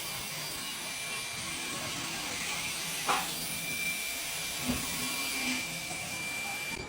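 TIG welding arc hissing and buzzing steadily, with a brief sharp crackle about three seconds in.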